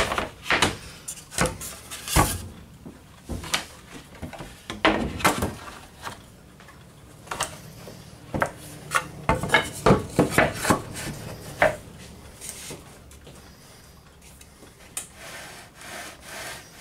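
Wooden boards and dowels being picked up, set down and shifted on a stainless-steel worktable: irregular knocks and clatters of wood on metal, busiest about two-thirds of the way through and thinning out near the end.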